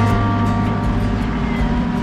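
Background music over the steady drone of a Land Rover Defender's engine running as it drives.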